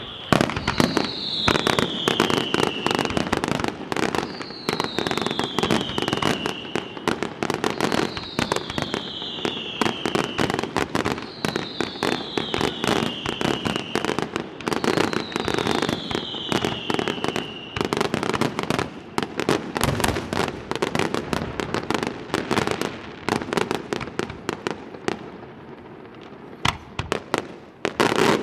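Fireworks display: dense crackling and rapid bangs of shells and firecracker strings. Through the first half, a high whistle falling in pitch repeats about every three and a half seconds. The crackle thins a little late on before a loud burst near the end.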